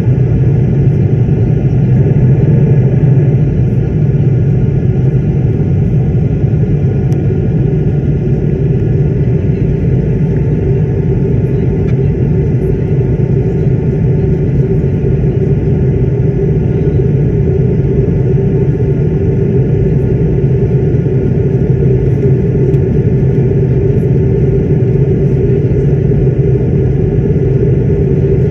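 Airliner cabin noise in flight: a loud, steady low rumble of engines and rushing air, with a steady hum over it.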